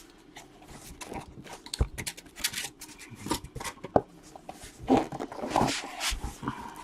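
Cardboard card boxes and case being handled on a table: scattered taps, knocks, scrapes and rustles, with a couple of low thuds and a short pitched sound about five seconds in.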